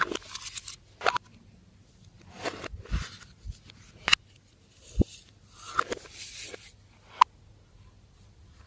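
Slime being worked by hand, with irregular sticky clicks, crackles and squishes and one sharp snap near the end.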